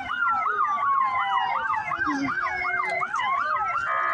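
Emergency vehicle sirens sounding together: one on a fast yelp, about three up-and-down sweeps a second, over another on a slow rising and falling wail. A steady horn blast cuts in just at the end.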